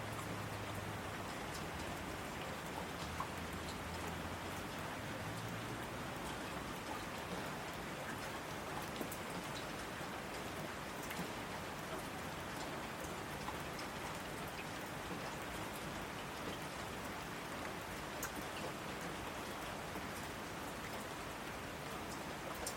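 Steady rain falling, a constant hiss with individual drops ticking sharply on a surface. A faint low hum sits under the rain for the first several seconds.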